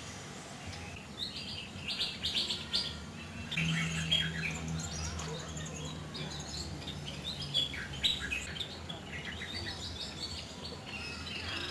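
Many birds of a mixed aviary flock chirping and calling over one another in short, overlapping bursts. A low steady hum runs underneath for a few seconds in the middle.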